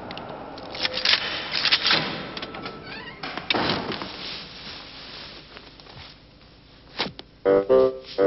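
Clicks and rustling at a front door as it is unlocked, opened and pushed shut, then the rustle of a jacket being taken off. Piano notes start near the end.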